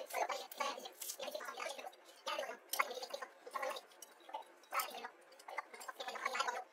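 Eating spaghetti: wet slurps and chewing in short, irregular bursts, with sharp clicks of a fork against the plate.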